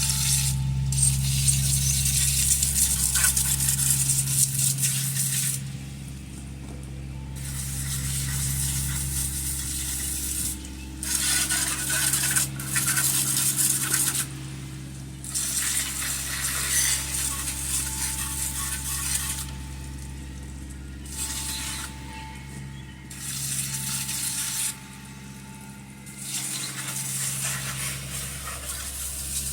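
Garden hose spraying water onto the Tecumseh HH120 engine to wash out a mouse nest, the spray rattling on the metal. It cuts off for a second or two several times and starts again, over a steady low hum.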